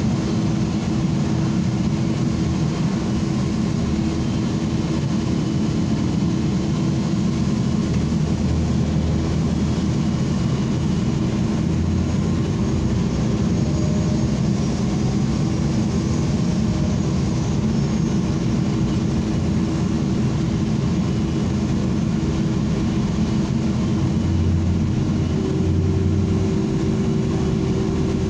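Steady engine drone and road rumble heard from inside a moving ENC city transit bus, with faint high squeaks for a few seconds around the middle.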